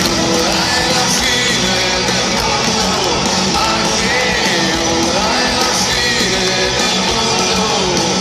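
Live rock band playing with a male lead singer, loud, heard from within the audience.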